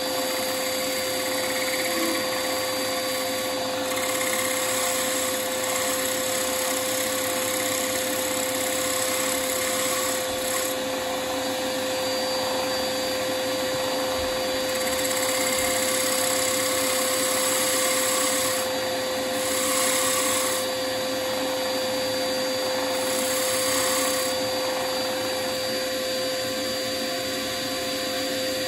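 Wood lathe running steadily with a constant motor hum, while a bowl is worked on it: several stretches of higher hiss come and go as the tool or abrasive bears on the spinning wood.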